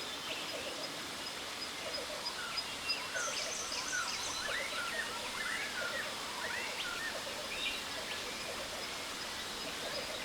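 Jungle waterfall ambience: the steady rush of falling water with many birds chirping and calling over it, and a thin, steady high tone.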